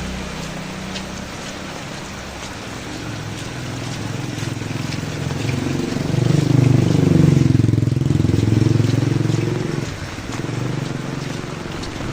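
Steady rain falling, with a motor vehicle's engine passing by: it rises from about three seconds in, is loudest between about six and ten seconds in, then drops away.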